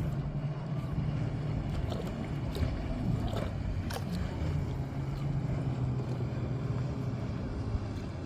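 Water rushing steadily over a constant low hum, with a few small clicks and splashes.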